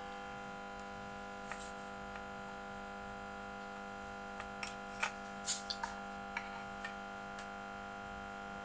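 Steady electrical hum, with a handful of light metallic clicks and taps in the middle as a compression tester's hose fitting is handled and unscrewed from a spark plug hole.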